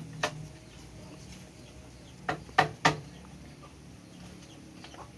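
Sharp knocks of a hand tool striking bamboo: one just after the start, three in quick succession about two and a half seconds in, and a fainter one near the end.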